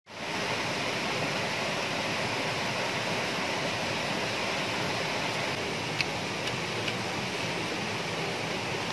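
Steady rush of water over the rocks of a stream's rapids, fading in at the start, with two faint clicks about two-thirds of the way through.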